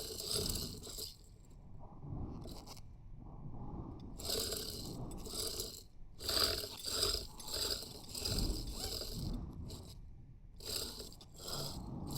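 Packaging being handled while a bowling ball is unboxed: irregular bursts of crinkling and scraping, loudest in the middle.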